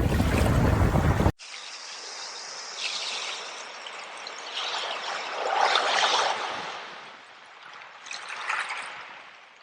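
Loud rushing noise of surf and wind stops abruptly just over a second in, giving way to a much quieter stream trickling and splashing, swelling now and then.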